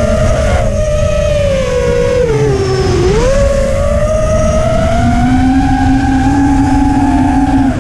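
Brushless motors and three-blade 5x4.3x3 props of a 5-inch FPV racing quadcopter whining in flight, heard from its onboard camera, with a steady rush of wind over the microphone. The whine falls as the throttle eases to a low about three seconds in, then climbs and holds, with a second lower motor tone joining a couple of seconds later.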